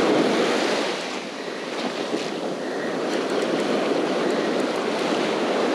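Ocean surf breaking and washing up the sand at the water's edge: a steady rushing wash.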